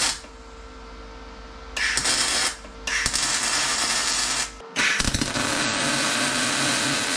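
Electric arc welding a thin steel rod onto a steel pin: the crackling hiss of the arc in three separate runs of about one to two seconds each, with a steady hum from the welder in between.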